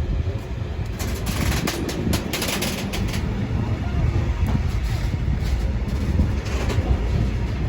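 Wagons of a Class 66-hauled engineers' train rolling past with a steady low rumble. The wheels clatter over rail joints in bursts, heaviest between about one and three seconds in and again at the very end.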